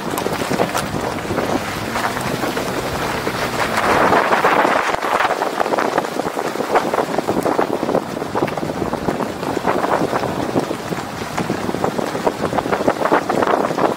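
Wind rushing over a microphone mounted on the side of a pickup truck driving a dirt road, with tyres crunching on the dirt and gravel ticking throughout; the rush swells about four seconds in.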